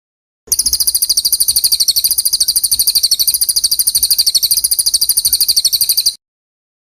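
A songbird's fast, even chirping trill of about a dozen sharp, high notes a second. It starts about half a second in and cuts off abruptly about five and a half seconds later. It is a looped 'isian' filler-song recording of the kind played to train white-rumped shamas.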